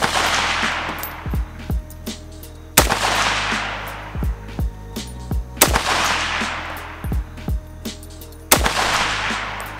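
James River Armory BM59 semi-automatic rifle firing 7.62×51mm NATO ball ammunition. A shot comes right at the start and three more follow about three seconds apart, each trailing off in a long echo. Background music plays underneath.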